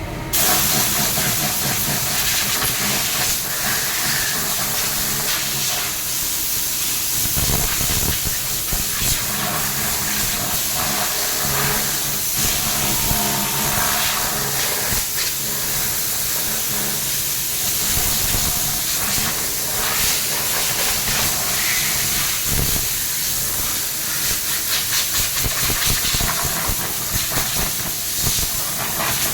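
Compressed air from an air-blow nozzle hissing loudly as it blows dust out of a table fan. It starts suddenly just after the start and keeps going with small swells, over a faint low hum.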